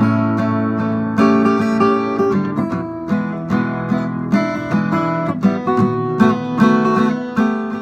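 Background music: strummed and plucked acoustic guitar playing steady chords, loud throughout, fading out at the very end.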